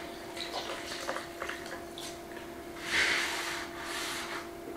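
Damp cloth being rubbed over a freshly sanded wooden countertop to wipe off the dust, with a few small clicks and knocks early on and the strongest wiping stroke about three seconds in. A faint steady hum runs underneath.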